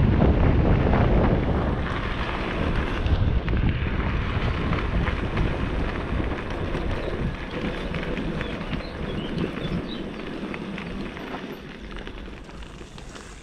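Wind buffeting the microphone of a moving e-bike: a rough rumbling rush with no clear engine or motor tone, fading gradually.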